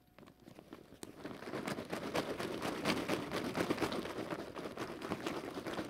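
Raffle ticket stubs being shaken in a clear plastic bag, making a dense crackling rustle of paper and plastic. It builds up about a second in and keeps going.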